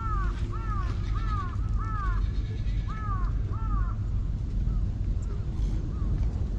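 A crow cawing in a quick series, about two short caws a second, then a few fainter caws. A steady low rumble runs underneath.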